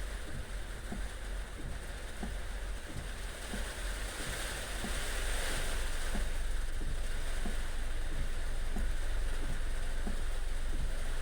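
Heavy rain pouring down: a dense, steady rushing hiss that gets louder a little past halfway. A steady low rumble and faint regular taps run underneath.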